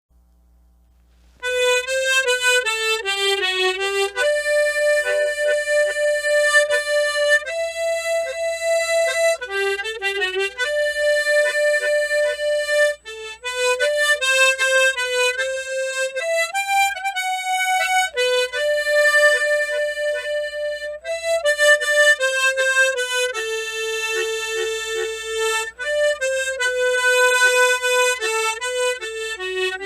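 Tremolo harmonica playing a slow, sustained melody line. It comes in about a second and a half in, after a short silence.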